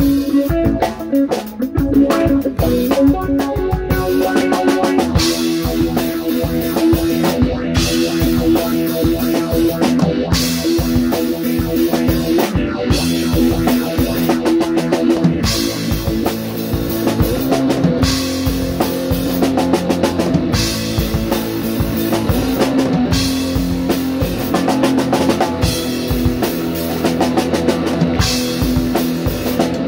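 Rock music with a drum kit and electric guitar, playing steadily with a regular beat.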